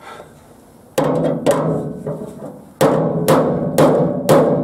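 Hand hammer striking the steel sheet metal of a 1950 Ford hood, six sharp ringing blows: two about a second in, then after a pause four more, about two a second. The blows are straightening the warped edge of the hood panel so that the inner reinforcement frame can slide in.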